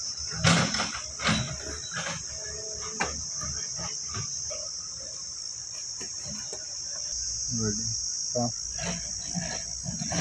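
Steady high insect chirring, with rustling and light clattering of rubber O-rings and seals being rummaged through in a cardboard box and spread out, the clicks thickest in the first few seconds.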